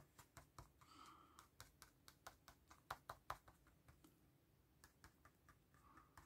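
Brush pen tip dabbing on paper: a string of faint quick taps, about three a second, pausing briefly a little past the middle before starting again.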